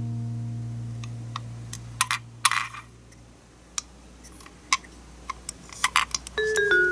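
Scattered light clicks and taps from a die-cast toy bus being handled and turned over in the hands, with a brief scrape a couple of seconds in. Music starts again near the end.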